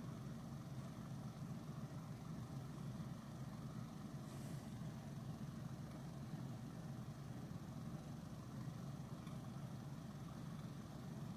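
Quiet steady low hum of room noise, with a brief soft hiss about four seconds in.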